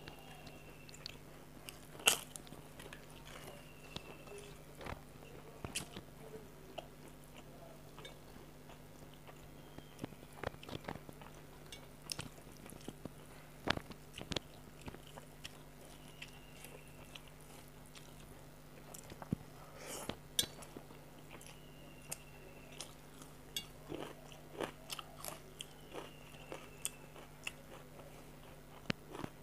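Close-miked eating: fried papad (poppadom) crunching between the teeth and chewing of rice, heard as scattered sharp crunches and clicks, the loudest about two seconds in. A steady low hum lies underneath.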